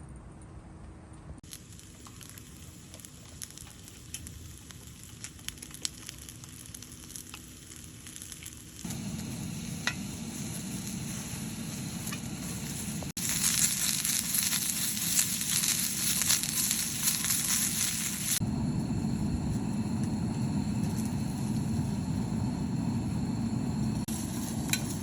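Food sizzling and frying in a hot pan, a steady hiss with scattered sharp pops of spitting oil. It comes in several short stretches that change abruptly, loudest in the middle.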